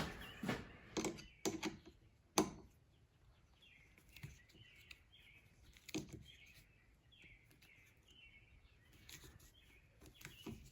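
Scattered metal clicks and taps from a screw and handle being worked into a thin sheet-metal furnace lid. A small bird chirps in a quick series of short high notes, about two a second, through the middle.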